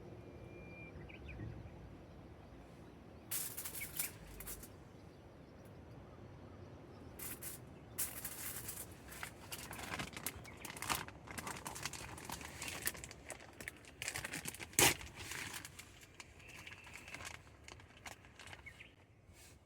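Dry kindling and paper being crumpled and stuffed in tightly for a campfire: irregular rustling and crinkling in bursts, with a sharp snap about fifteen seconds in.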